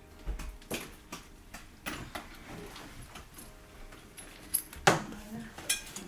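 Scattered light clicks and knocks of small objects being handled, with one louder, sharper knock about five seconds in.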